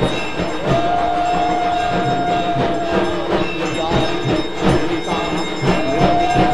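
Conch shells (shankha) blown in long, steady horn-like notes, each sagging in pitch as the breath runs out, over rhythmic ritual percussion.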